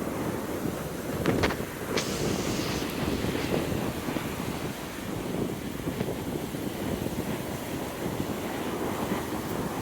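Wind buffeting the microphone over a steady low rush, with a few sharp knocks between about one and two seconds in.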